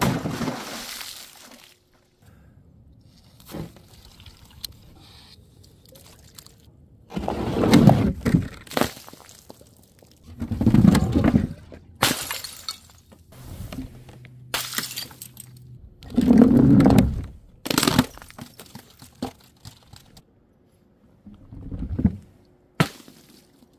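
A series of objects dropped onto pavement: water balloons bursting and splashing, and glass jars and bottles shattering. There are about ten separate crashes and splashes a few seconds apart, some ringing with scattering glass.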